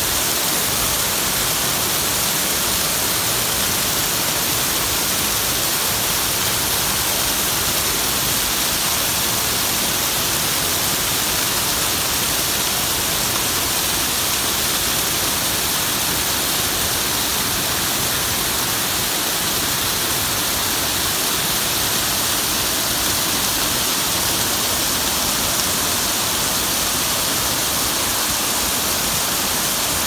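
Nabegataki waterfall's thin curtain of water falling onto rocks and a shallow pool: a steady rush of falling, splashing water with a bright hiss.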